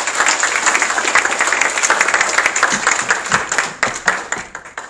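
Audience applauding, which dies away near the end.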